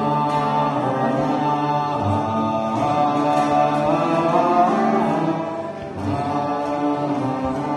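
A group singing a slow sacred chant, with a violin playing along.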